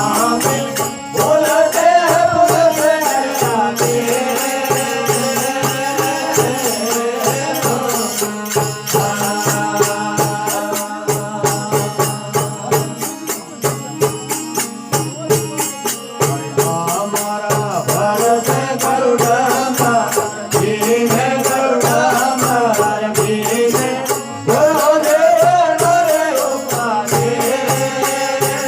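Rajasthani folk devotional bhajan music: a melody line that rises and falls, over a steady rhythmic percussion beat.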